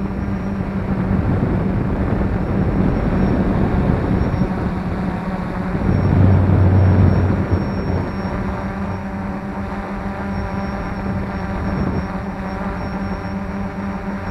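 F450 quadcopter's motors and propellers humming steadily, with a louder, deeper stretch from about six to seven and a half seconds in.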